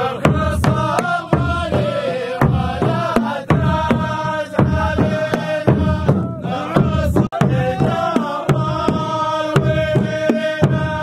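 Men chanting together over a steady beat on a large frame drum: the music of the Saudi ardah sword dance.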